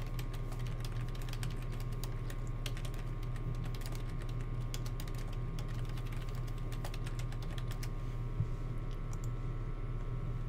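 Typing on a computer keyboard: irregular runs of key clicks over a steady low hum, with one louder knock about eight seconds in.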